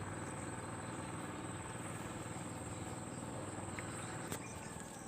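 Insects chirring steadily in a continuous high tone over a low, even background hiss, with a single faint tick about four seconds in.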